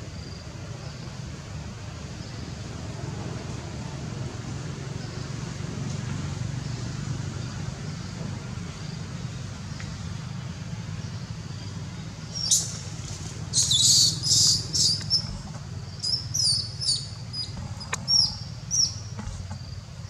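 A steady low hum, then, a little past halfway, a quick run of loud, high, sharp chirping calls that comes in short bursts, some of them sliding in pitch.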